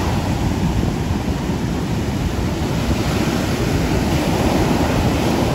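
Ocean surf breaking and churning in a loud, steady rush, with wind rumbling on the microphone.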